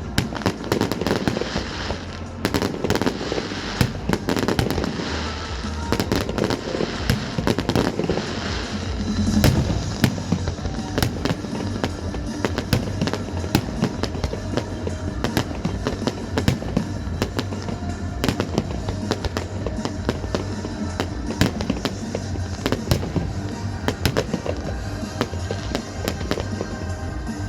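Fireworks display: a rapid string of bangs and crackling bursts, over loud music played with the show.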